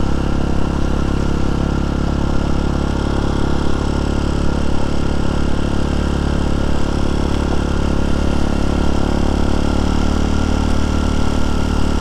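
TaoTao TBR7 motorcycle's engine running at a steady speed while the bike is ridden.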